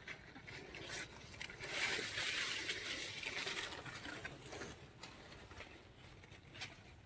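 Maize leaves rustling and brushing as someone pushes slowly through a cornfield, loudest for a couple of seconds in the middle.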